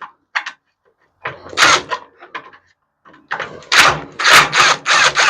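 Several loud bursts of clattering, knocking and scraping from scrap parts being pulled and handled while an appliance is taken apart. There is one short burst about a second in and a longer run of clatter in the second half.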